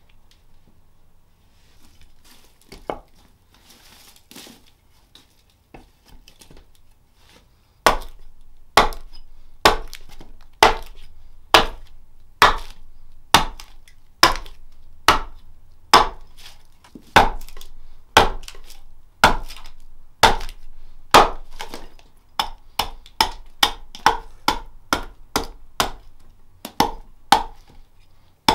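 Hatchet chopping a jacaranda plate blank on a tree-stump chopping block, hewing it round. The cuts are sharp, evenly spaced strikes that start about eight seconds in, after quiet handling sounds. They come about one a second, then quicken to about two a second in the last third.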